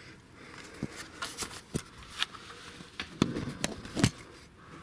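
Handling noise while climbing up rock: a hand-held camera jostled against clothing, with clothes rustling and scattered irregular clicks and knocks, a few heavier knocks between about three and four seconds in.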